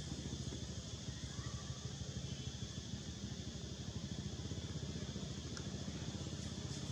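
Steady low engine drone, a motor running at an even idle, with a couple of faint ticks near the end.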